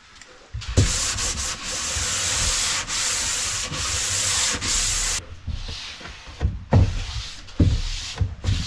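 Hand-sanding the face of sapele plywood with fine sandpaper on a small block: a steady scratchy hiss of strokes for about four and a half seconds. It stops abruptly and gives way to lighter, broken rubbing as a cloth wipes over the panel, with a couple of soft knocks.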